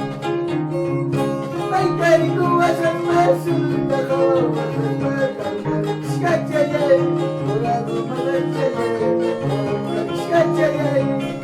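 Peruvian harp played by hand, rapid plucked notes over a steady bass line. A wavering melody line runs above it.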